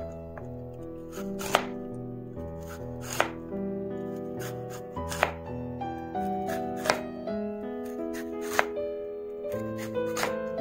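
Chef's knife slicing through raw lotus root and striking the cutting board: about six crisp knocks, one every second and a half to two seconds, over background music.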